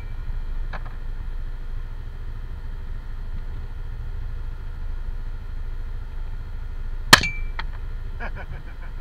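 Side-by-side utility vehicle's engine idling with a steady low rumble. About seven seconds in comes one sharp crack with a brief metallic ring, followed by a short run of quick clicks.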